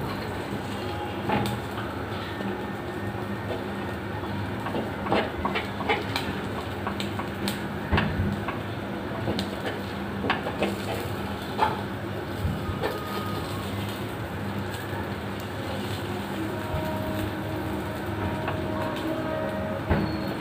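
A steady low hum, with light clicks and knocks scattered through it.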